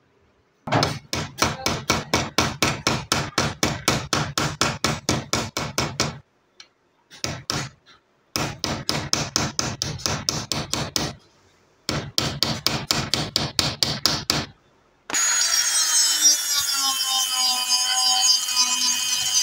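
Rapid light hammer strikes peening the metal rivet pins of a wooden knife handle held in a bench vise, about five strikes a second in runs of a few seconds with short pauses. About fifteen seconds in, a rotary tool with a polishing bob starts up with a steady high whine, polishing the rivet heads.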